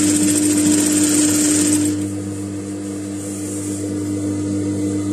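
JUKI industrial sewing machine stitching lace trim onto fabric in a fast run for about two seconds, then slowing and quieter, over a steady low hum.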